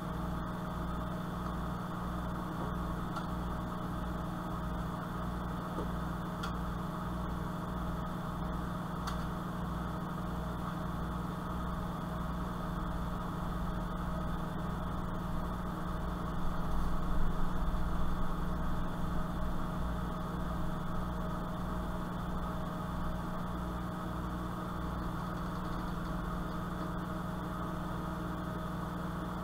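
Steady low machine hum with a slow, regular throb underneath, and a brief louder stretch of noise about seventeen seconds in.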